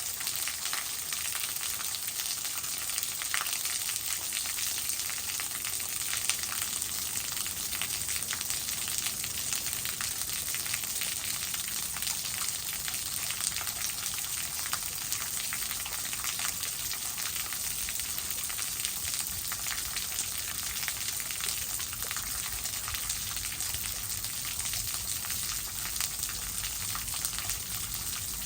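Waterfall splashing: a steady hiss of falling water, with many small splashes.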